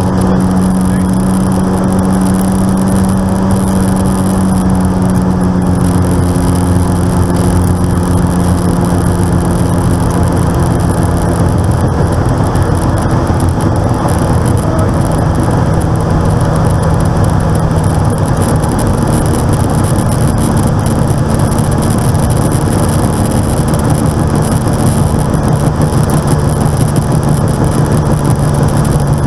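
Light aircraft's piston engine running steadily, heard inside the cockpit, its note slowly dropping in pitch as power comes down. This is the engine noise being documented after the fuel-injection flow divider ('spider') was replaced.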